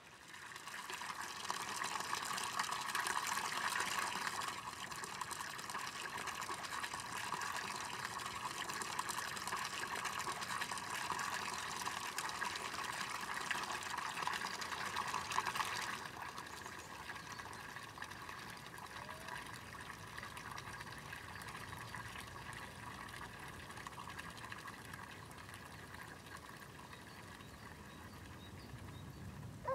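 Water running steadily out of a village spring fountain into a concrete basin, trickling and splashing without a break, left to flow away unused. About halfway through it becomes noticeably quieter but keeps running.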